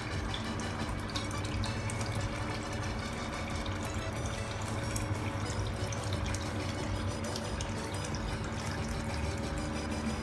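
Water from an aquarium filter's return pipe pouring steadily into a shallow fish tub and splashing at the surface, with a low steady hum underneath.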